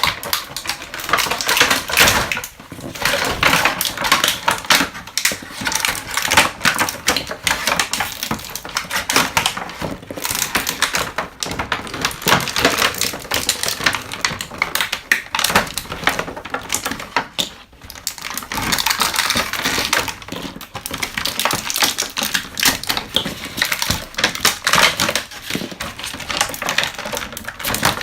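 Plastic toy packaging and small plastic pieces being handled and unpacked: dense crinkling and clicking, with a brief lull a little past halfway.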